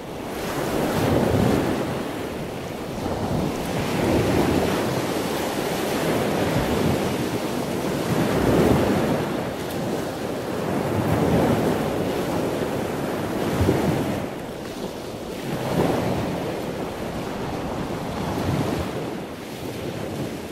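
Ocean waves and wind: a steady wash of surf that swells and ebbs every two to three seconds, with wind rumbling on the microphone.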